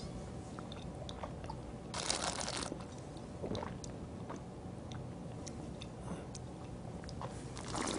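Mouth sounds of wine tasting: a short slurping hiss as air is drawn through a sip of red wine about two seconds in, another near the end, and small wet clicks as the wine is worked around the mouth.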